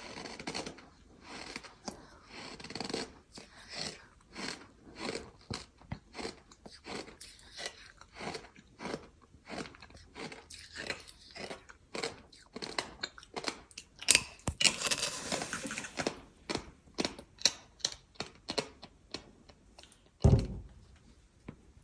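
Gritty ASMR sand being crunched over and over in short squeaky crunches, about one or two a second, with a longer crackling stretch partway through and a heavy thud near the end.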